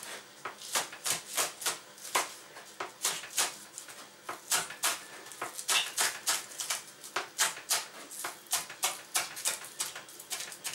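Kitchen knife chopping spring onions on a plastic cutting board: a run of quick, sharp taps, about four a second, with a couple of short pauses.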